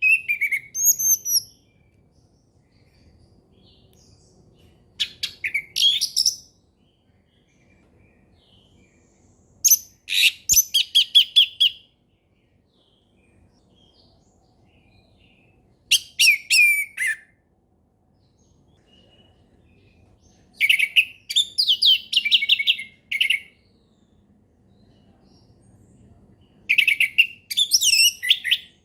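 Orange-headed thrush singing its full 'ngeplong' song. It sings in about six short phrases of rapid, high whistled notes and slurs, each phrase one to two seconds long, with pauses of a few seconds between them.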